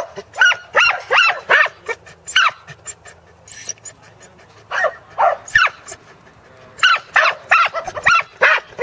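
Dog barking in quick runs of sharp barks, about two or three a second, with a pause of a couple of seconds in the middle.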